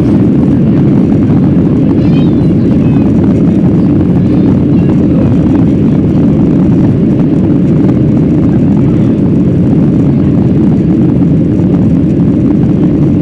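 Steady engine and airflow noise inside an airliner cabin in flight, a dense low drone with no change.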